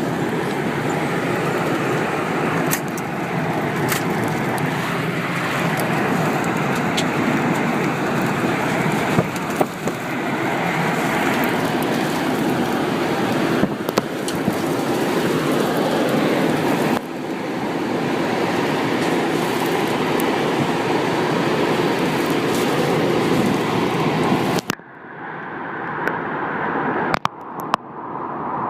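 Strong tornado winds as a loud, steady rushing roar, with scattered sharp clicks and knocks. The roar breaks off abruptly about 25 seconds in, leaving a duller, quieter rumble.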